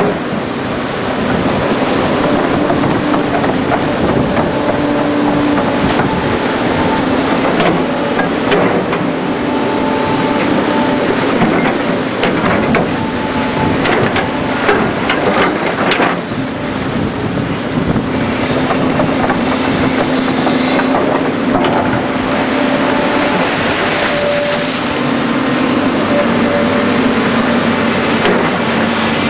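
A Volvo crawler excavator's diesel engine running with its hydraulics working, the engine note rising and falling under load, over water rushing through a breached beaver dam. A few sharp clanks about halfway through.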